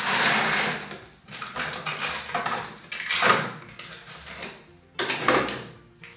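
Rummaging in a fridge's freezer compartment: frozen packages rustling and containers clattering as they are shifted around. It comes in several bursts, the loudest about three seconds in.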